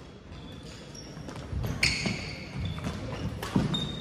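Badminton rally on a hardwood gym floor: sneakers squeaking sharply, loudest about two seconds in, and a few sharp racket hits on the shuttlecock.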